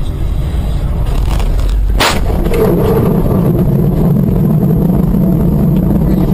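A car collision heard from inside the dashcam car: one sharp crash about two seconds in, in which the windscreen is cracked, followed by a steady low rumble.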